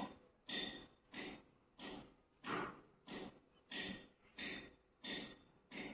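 Kitchen knife sawing back and forth through soft steamed dhokla, scraping on a wooden cutting board: a steady run of short swishing strokes, about three every two seconds.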